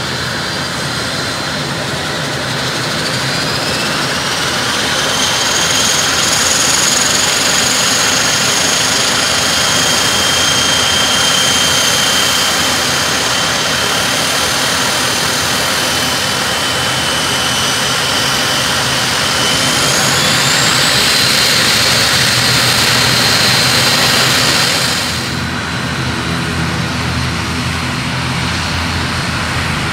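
ATR 72-600 turboprop engine running on the ground: a loud, steady turbine whine that rises in pitch about three seconds in and again about twenty seconds in as the engine spools up. About 25 seconds in the high whine drops away abruptly, leaving a quieter, deeper engine hum.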